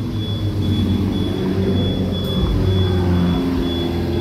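Sports car engines running at low speed as the cars pull out one after another, a steady low engine note that rises a little partway through.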